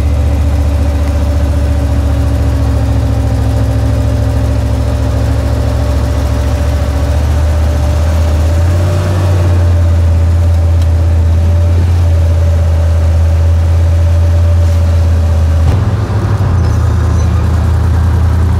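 Turbocharged Chevrolet Suburban's engine running steadily with a loud, constant low drone. The engine note rises slightly about halfway through and dips briefly near the end.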